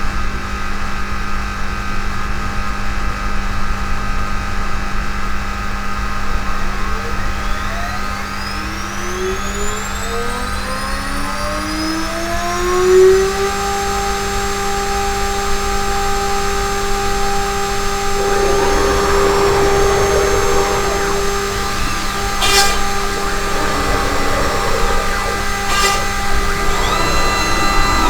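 DIY CNC router's spindle running with a steady hum, its whine rising in pitch and then holding steady about halfway through as it comes up to speed. Over the second half a single-flute end mill cuts plywood, adding a rough, gritty noise and a few sharp clicks.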